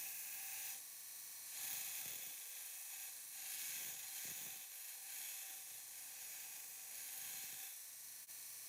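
Brodbeck 2x72 belt grinder running as steel is ground against the belt: a high hiss that swells and eases several times as the blade is pressed on and lifted.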